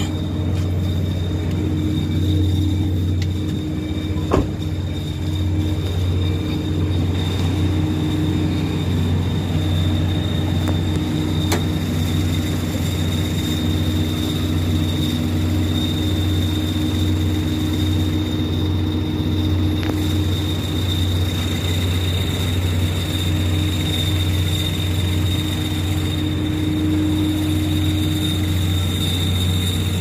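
Car engine idling with a thin, steady high-pitched whistle over its low hum, and a single knock about four seconds in. The whistle goes away when the clutch pedal is pressed and was cured by tightening a slack clutch cable.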